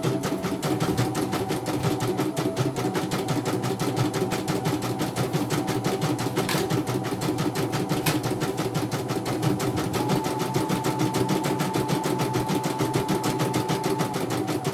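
CNY portable computerized embroidery machine stitching a design: a rapid, even run of needle strokes over the steady whine of its motor, which steps up slightly in pitch about ten seconds in. Two sharper clicks stand out near the middle.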